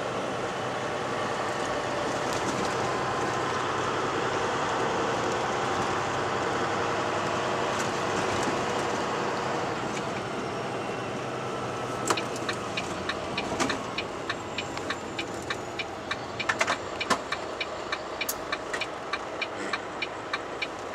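Cab interior of a Volvo 880 semi tractor driving bobtail: steady diesel engine and road noise. About halfway through the noise eases, and a regular turn-signal ticking of about two and a half ticks a second starts, with a few louder clicks among the ticks.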